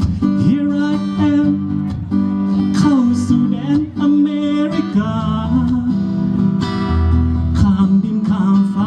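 Acoustic guitar strumming chords under a singing voice holding wavering notes: a song performed live.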